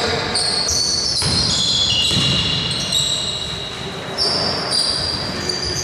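Basketball shoes squeaking on a hardwood court as players run and cut, many short high squeaks overlapping one another, with the thud of a basketball bouncing.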